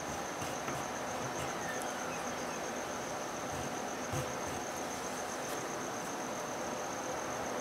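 A steady high-pitched pulsing insect trill over a constant hiss, with faint scratches and light taps of a pencil drawing on paper.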